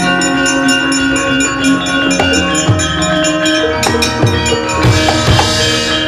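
Gamelan ensemble playing: hand-drum strokes over sustained ringing metallophone tones, with a short noisy metallic clash about five seconds in.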